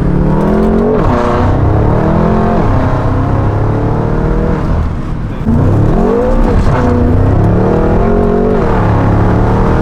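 BMW F10 M5's twin-turbo 4.4-litre V8, fitted with aftermarket downpipes and a stage 2 tune, accelerating hard. The engine note climbs and drops back through gear changes, and gets louder about halfway through.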